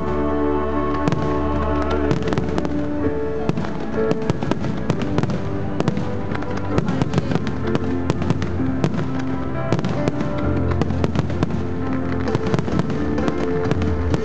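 Fireworks display: many quick bangs and crackles in dense clusters, over music with long held notes.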